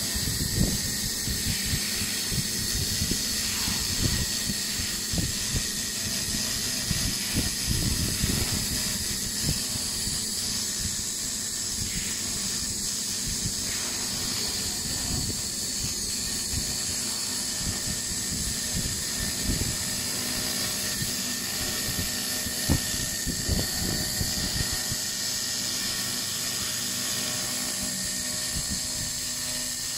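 Handheld 2 kW fiber laser cleaning head ablating rust off a 5 mm carbon steel plate: a steady high hiss with irregular low crackles.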